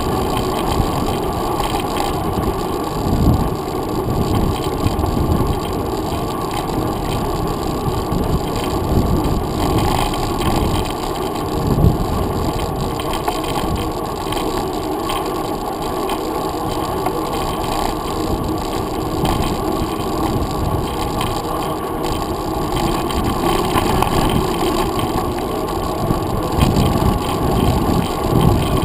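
Mountain bike rolling along a paved trail, heard through a handlebar-mounted GoPro Hero 2 in its housing. A steady, muffled rumble of tyre, wind and vibration noise, with irregular bumps.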